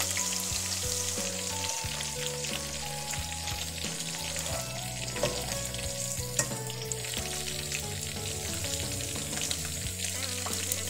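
Sliced onions frying in a cup of hot oil in a pot: a steady sizzle, with a metal slotted spoon stirring through them.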